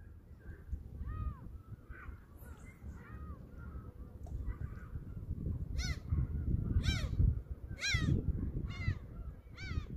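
A bird calling over and over: harsh, arched calls about once a second, faint at first and much louder from about halfway, over a steady low rush.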